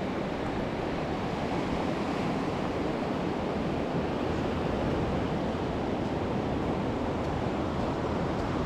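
Steady, even rush of surf washing onto a sandy beach, mixed with wind.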